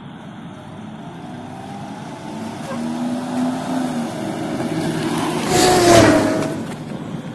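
A car approaching and driving past, its engine and tyre noise building to a peak about six seconds in and then falling away.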